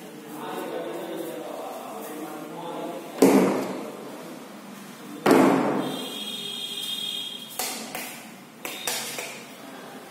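Two loud thuds about two seconds apart, each ringing out in the room, with a few lighter knocks after them and faint voices in the background.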